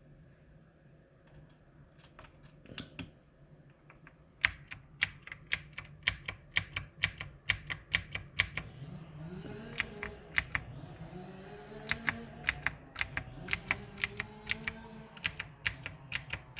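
Typing on a Mars Gaming MKmini 60% mechanical keyboard: a few scattered key clicks, then from about four seconds in a steady run of sharp keystrokes, roughly three a second.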